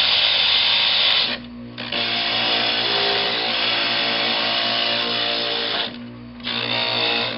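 Glastar stained-glass grinder running with a steady motor hum while a small piece of glass is ground against its bit, a harsh grinding hiss. The grinding stops twice briefly, about a second and a half in and about six seconds in, while the motor keeps humming.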